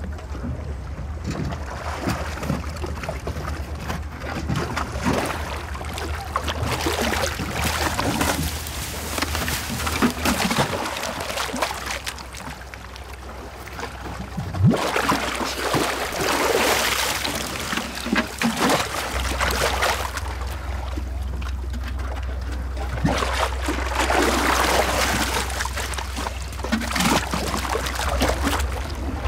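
Water splashing and sloshing in irregular surges that swell and fade every few seconds, over a steady low hum.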